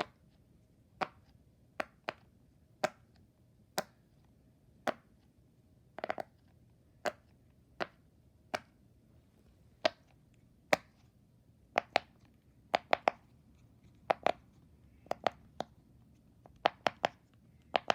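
Silicone pop-it fidget toys, rainbow and tie-dye, being pressed bubble by bubble: a series of single sharp pops at an uneven pace, coming quicker in the second half.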